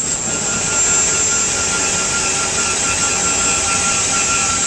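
UH-1 Huey's Lycoming T53 turboshaft engine running steadily on a ground run, with a continuous high-pitched turbine whine over the jet roar.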